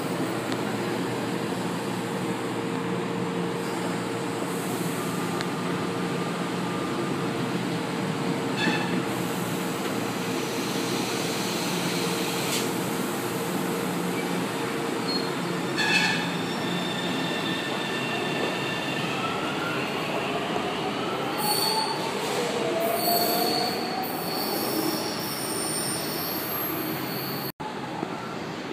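São Paulo Metro Line 1 electric train standing at the platform with a steady hum. In the last third it pulls away with a rising electric motor whine and a high wheel squeal.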